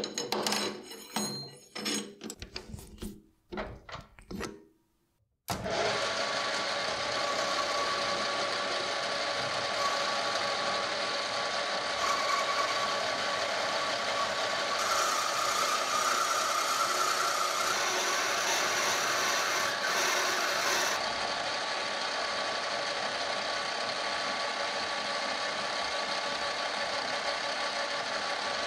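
A brass rod knocks and clicks as it is set into a metal lathe's chuck. About five seconds in, the lathe starts abruptly and turns the brass with a carbide insert, giving a steady machining noise with a faint steady whine.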